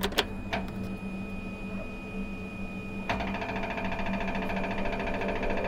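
Switch clicks on the control panel of a Lincoln Ranger 330MPX EFI welder-generator, then about three seconds in a rapid, steady electric buzz starts as the machine is switched on and powers up ahead of the engine start.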